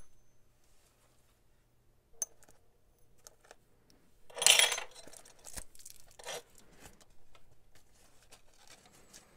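A parcel's packaging being opened and handled by hand: scattered small clicks and rustles, with one louder burst of rustling packaging about four and a half seconds in and a softer one near the middle.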